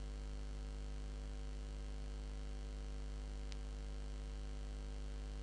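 Steady electrical mains hum on the narration microphone, with one faint click about three and a half seconds in.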